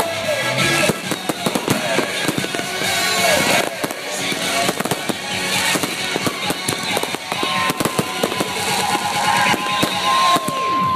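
New Year fireworks going off in a dense barrage of bangs and crackling, with whistling fireworks gliding up and down in pitch. A long steady whistle runs from about two-thirds of the way in until just before the end.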